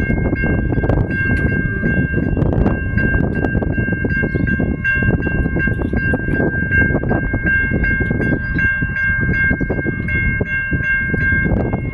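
Level crossing warning bells ringing in a fast, even, repeating ding, over a constant low rumble.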